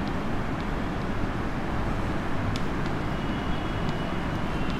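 Steady background rumble with a few faint, scattered ticks of chalk on a blackboard as a word is written.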